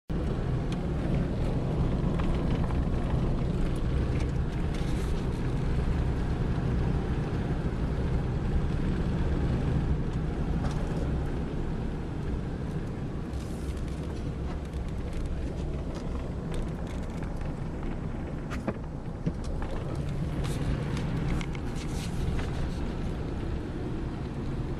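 Motor vehicle running steadily: a continuous low engine and road rumble, a little louder in the first half, with a few faint ticks.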